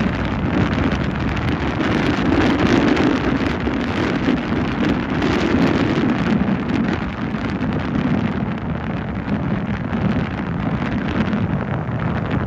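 Wind buffeting the microphone: a loud rushing noise that swells and eases in gusts every few seconds.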